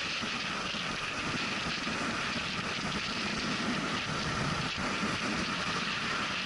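Steady road and wind noise from a vehicle driving at speed on a highway, as picked up by an on-board camera: an even hiss with no distinct events.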